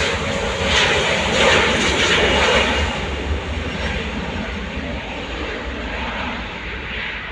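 Embraer E175 jet on its takeoff roll, its twin GE CF34-8E turbofans at takeoff power. The engine noise is loudest about one to three seconds in as the jet passes, then fades as it moves away down the runway.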